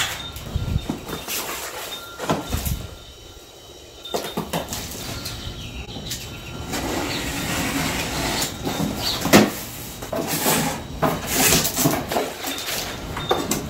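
A cardboard shipping box wrapped in packing tape being handled and opened: a run of knocks, scrapes and rustles, busier in the second half.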